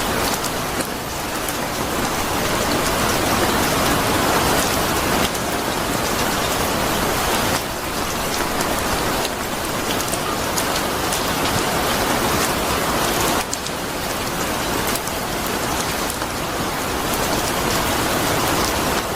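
Steady rain falling on a surface: a dense, even hiss with many small drop ticks. The level steps up or down abruptly a few times, at about five, seven and a half, and thirteen and a half seconds in.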